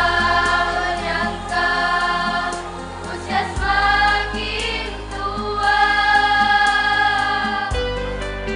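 Female choir singing long held notes in harmony, over low sustained accompaniment notes that change about every four seconds.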